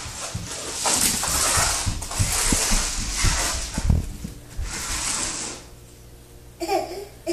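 Toy puppy's mechanism clicking and whirring as it is pulled along by its leash across a vinyl floor, stopping about five and a half seconds in. A toddler's voice follows briefly near the end.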